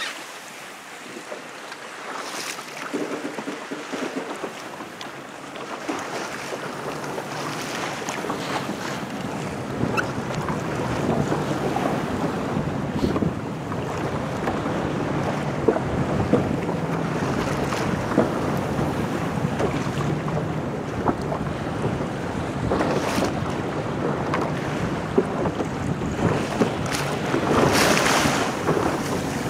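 Wind buffeting the microphone over water rushing along a racing sailboat's hull, growing louder over the first several seconds, with a few scattered knocks.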